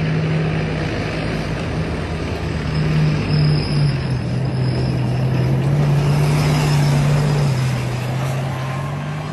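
Tank driving past at speed, its engine running hard over the rumble of its tracks. The engine note steps down and back up a few times, and the sound is loudest in the middle.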